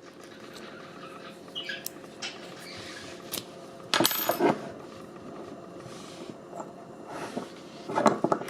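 Metal clicks and clinks from old railway padlocks and their key being handled, a few scattered knocks with the loudest cluster about four seconds in.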